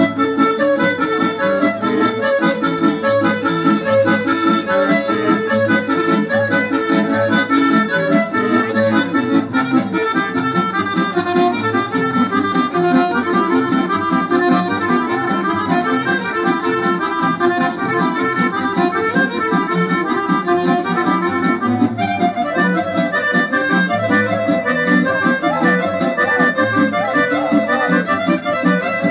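Serbian folk dance music for a kolo, led by accordion, playing continuously as quick runs of short notes over a steady beat.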